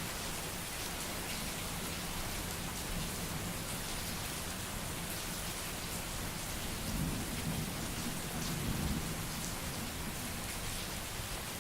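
Steady rain falling, with scattered drop ticks. A low rumble of distant thunder swells about seven seconds in and fades after about two seconds.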